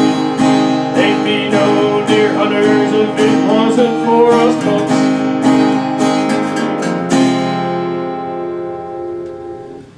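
Acoustic guitar strummed in a steady rhythm, playing out the end of a song. A final chord about seven seconds in rings on and fades away.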